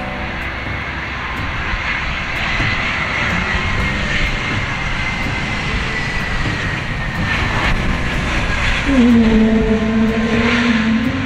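Airbus A321neo's Pratt & Whitney PW1100G geared turbofan engines passing on the landing approach: a broad jet rush that grows louder, with a high engine whine slowly falling in pitch. A lower steady droning tone comes in about nine seconds in.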